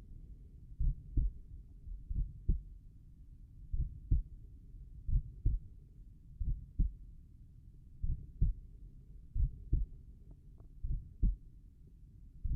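Slow, relaxed human heartbeat heard over the tricuspid valve area: a steady run of lub-dub pairs, each two dull low thumps about a third of a second apart, coming about once every 1.3 seconds.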